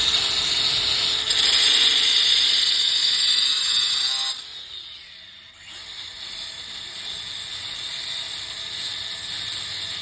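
Angle grinder with a diamond concrete blade cutting through steel mounting screws to shorten them. A loud cut lasts about four seconds, breaks off briefly, then a second, somewhat quieter cut runs until near the end.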